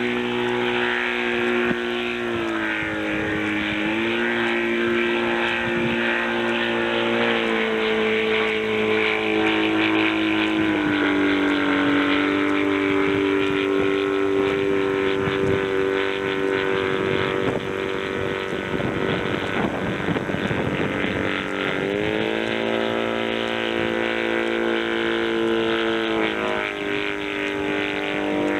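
Wallis autogyro's small piston engine droning overhead in flight, its pitch stepping up and down several times.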